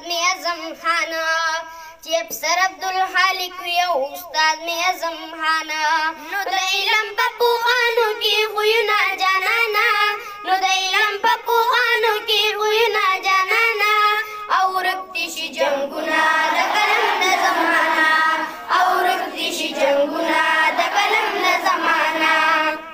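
A boy singing a school tarana, without instruments, into a microphone. His voice is amplified through a loudspeaker. About two-thirds of the way through, the singing grows denser and fuller.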